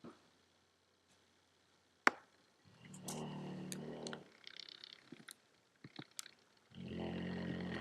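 A dog snoring in its sleep: two long snores of about a second and a half each, roughly four seconds apart. A sharp click comes about two seconds in, with a few faint clicks between the snores.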